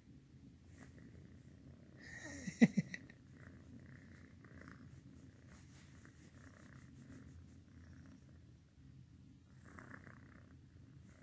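A kitten purring steadily while being held and stroked. A brief loud knock about two and a half seconds in.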